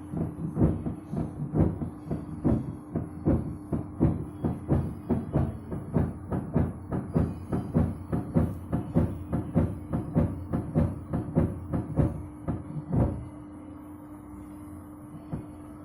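Samsung WW60K42106WDUA front-loading washing machine turning its drum to distribute a wet blanket before spinning, with repeated heavy knocks about three a second over the motor's steady hum. The machine is failing to balance the load so it can spin; the owner notes the transport bolts were removed. Near the end the knocking stops and only the hum remains.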